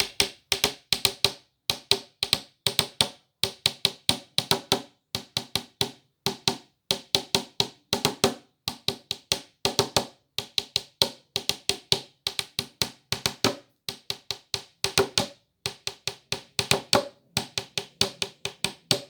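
Sharp wooden-sounding taps beating out a steady, quick rhythm in short clusters of several strikes, like hand percussion on a wood block or tabletop.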